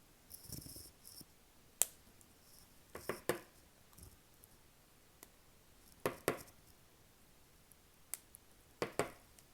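Small cutters snipping off stray copper strands that stick out of a freshly crimped 10 AWG Powerpole contact. Several sharp snips come a second or two apart, some in quick pairs, after a brief rustle of handling at the start.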